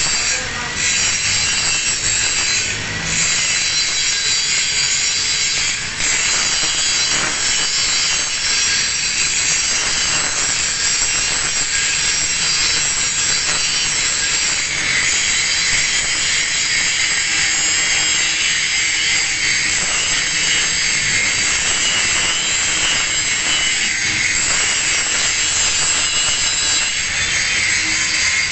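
Angle grinder grinding a single bevel on the edge of a metal plate: a steady, loud, high-pitched grinding that eases off briefly a few times in the first six seconds.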